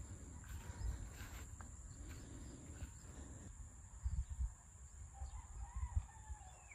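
Low, uneven gusts of wind rumbling on the microphone, with a steady high thin tone and a faint wavering animal call near the end.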